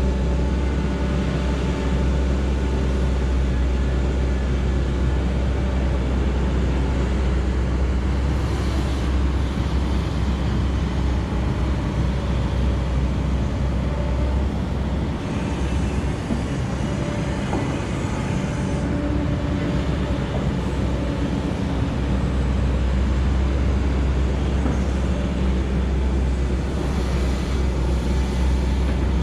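Heavy diesel machinery at work, excavator and truck engines running with a steady, deep drone and engine tones. The deepest part of the drone drops away for a few seconds past the middle, then returns.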